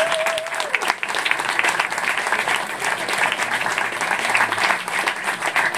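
Audience and panellists applauding: dense, steady clapping, with a brief wavering tone over it in the first second.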